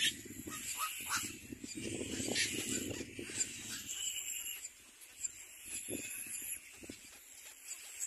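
Little black cormorants calling at the nest: a rough, rapid low chatter with thin high squeaks over it, dropping to fainter calls about halfway through.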